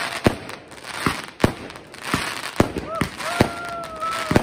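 Aerial fireworks bursting in a string of sharp bangs, about seven in four seconds, over a haze of crackle from crackling stars. A person lets out a long held whoop over the bursts about three seconds in.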